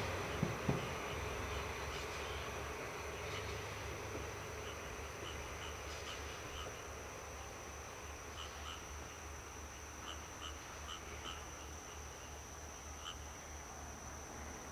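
Insects and frogs calling: one steady high-pitched insect trill, with short chirps scattered through it. Under them is a low rumble that slowly fades, a diesel locomotive moving off in the distance. A couple of dull knocks come about half a second in.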